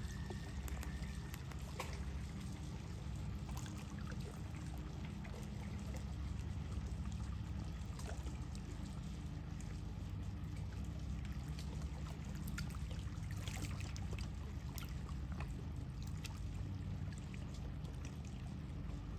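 Small lake waves lapping and trickling with light irregular splashes, over a steady low rumble.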